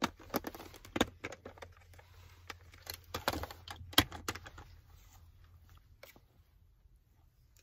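Sharp clicks and knocks of a plastic lunch box being handled and its lid taken off, the loudest about a second in and again about four seconds in, followed by quieter scraping of a wooden spoon stirring rice noodles in the metal tray.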